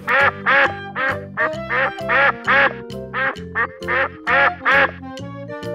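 Domestic duck quacking, about a dozen quacks in a quick even series that stops near the end.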